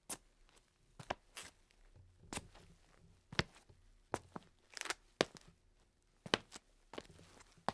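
An irregular series of short, sharp knocks and clicks, roughly one a second, some coming in quick pairs.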